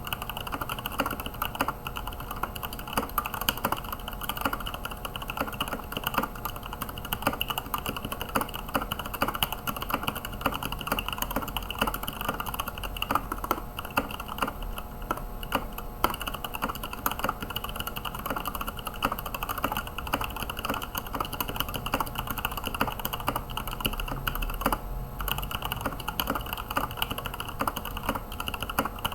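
Continuous fast typing on a GK61 mechanical keyboard with stock Gateron Yellow linear switches: a dense stream of keystroke clacks, with a brief pause near the end.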